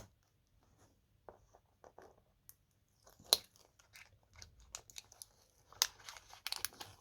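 Small taps and clicks with crinkling, like packaging being handled while a gasket is taken out of a chainsaw gasket kit. It is sparse at first and gets busier from about halfway through.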